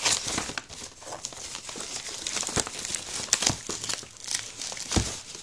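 Paper and plastic wrapping crinkling and crumpling in the hands as a parcel is unwrapped, with a few soft thuds of the package being handled, one near the end.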